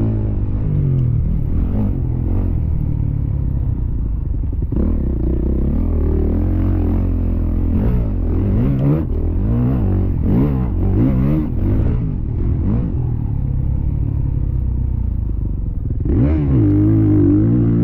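Motocross bike engine at race pace, its pitch rising and falling as the throttle is worked and the gears change, with a quick run of up-and-down revs in the middle and a sharp climb in revs about sixteen seconds in.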